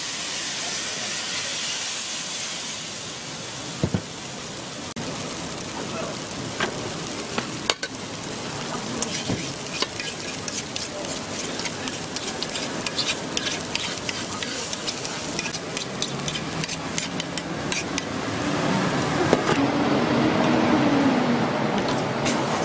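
Batter sizzling in the hot cups of a chrysanthemum-bread (gukhwappang) griddle mold. Through the middle there are many sharp clicks and scrapes of a metal pick working the cakes in the mold, and it grows louder near the end.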